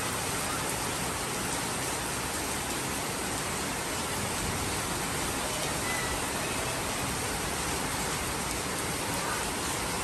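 Heavy rain falling steadily on a paved street and trees: an even, unbroken hiss of downpour.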